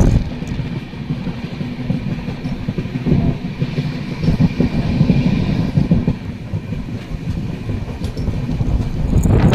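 Indian Railways passenger coach running at speed, its wheels rumbling and clattering over the rails with scattered sharp clicks, heard through the open coach doorway.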